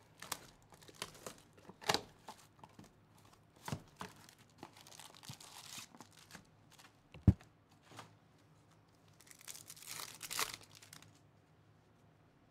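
Cardboard trading-card box being opened by hand: scattered scrapes and clicks of the flaps, with a sharp thump about seven seconds in. Near the end comes a second or two of tearing and crinkling of the card packaging.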